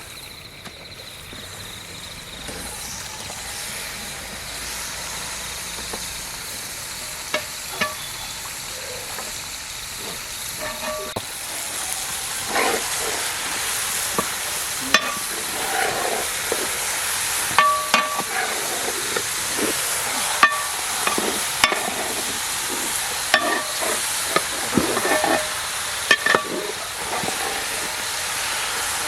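Food sizzling in oil in a pan, the sizzle growing louder over the first several seconds, while a metal spoon stirs it and clinks and scrapes against the pan again and again.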